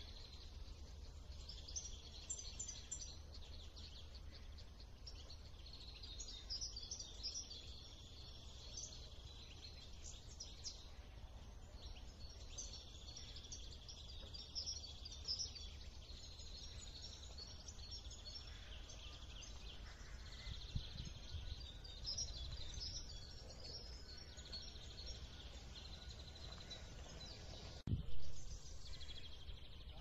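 Many small birds chirping and singing over a steady low wind rumble on the microphone, with a single short thump about two seconds before the end.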